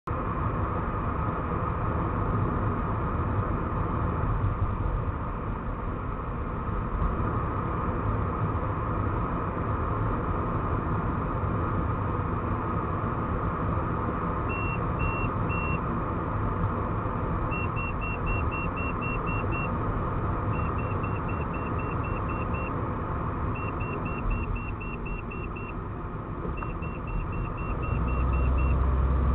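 Steady road and engine noise of a car being driven, with the electronic warning beeper of an LT1612 driving-warning head-up display. About halfway in it gives three short high beeps, then trains of about eight quick beeps, roughly four a second, repeating every three seconds as a vehicle ahead is tracked. Near the end the low rumble gets louder.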